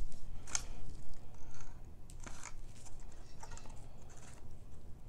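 A plastic squeeze bottle of Elmer's glue squeezed upside down into a plastic cup, giving a few short, scratchy squirting sounds as the thick glue comes out.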